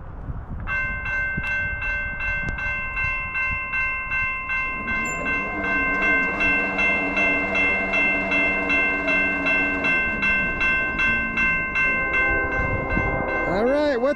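Railroad grade-crossing bell ringing in rapid, even strokes as the crossing signals activate and the gate arm lowers. A distant train horn sounds for several seconds in the middle.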